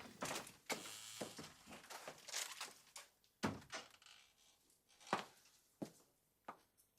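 Footsteps walking away on a hard floor: a string of knocks about half a second apart that grow fainter and stop near the end.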